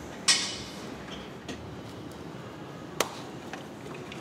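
Sharp knocks and clicks of hand work on the car: a loud knock about a third of a second in with a short ring-out, a fainter click around the middle, and another sharp click about three seconds in.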